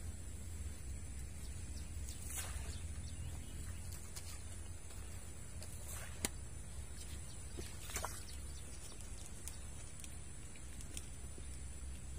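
Riverside outdoor ambience: a steady low rumble with a constant high hiss, broken by a few faint clicks about two, six and eight seconds in.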